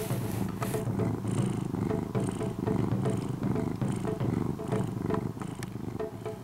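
Orange-and-white house cat purring steadily while it dozes.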